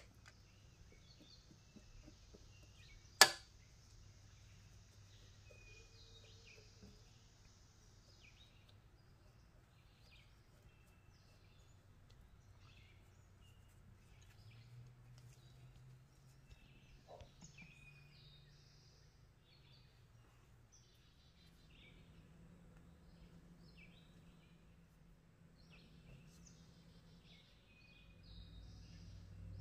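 Faint handling sounds of a spoon packing raw rice-and-ground-meat filling into a bell pepper: quiet scrapes and rustles, with one sharp click about three seconds in.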